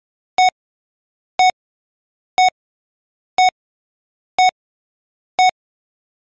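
Heart-monitor beep sound effect: six short, identical electronic beeps, one a second, with silence between.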